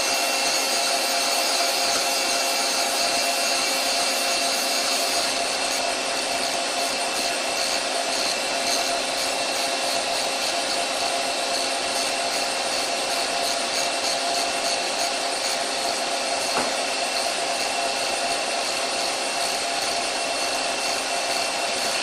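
Doosan CNC lathe running with its spindle turning at about 700 rpm: a steady machine noise with several held tones, with one faint click about three-quarters of the way through.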